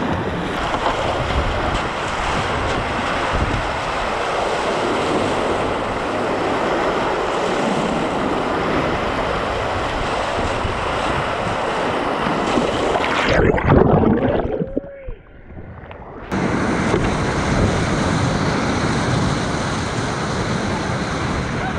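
Whitewater rapids rushing and splashing around a kayak, with wind buffeting the action camera's microphone. About thirteen seconds in the sound turns muffled and much quieter for some three seconds as the camera goes under the water, with a gurgle, then the full rush returns suddenly.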